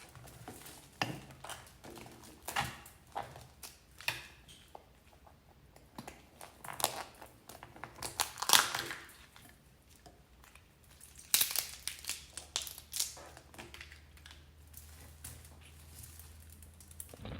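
Eating sounds: irregular crunches, clicks and crinkles a few seconds apart as food is handled and chewed, with a busier run of them about two thirds of the way through.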